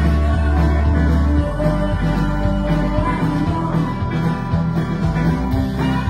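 Live band playing a rock song on banjo, electric guitar and drums.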